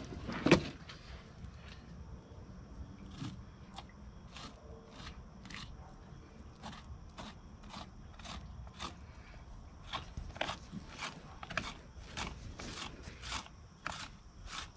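Fillet knife cutting alligator gar flesh along the inside of its armored skin: a run of short, crisp slicing strokes, irregular, coming faster in the second half. One louder thump about half a second in.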